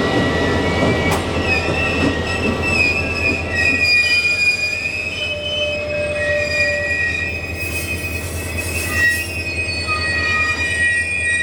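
Steel wheels of a grain train's wagons squealing on the rails, several high wavering squeals at once over a steady low rumble.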